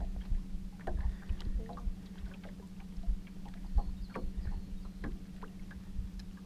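A small fishing boat sits idle on the water, with water lapping against the hull and scattered small knocks and ticks. A steady low hum runs underneath.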